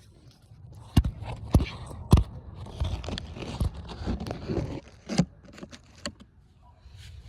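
Handling noise of a phone or camera being set in place: sharp knocks, three in the first couple of seconds and another about five seconds in, with scraping and rubbing against the microphone between them.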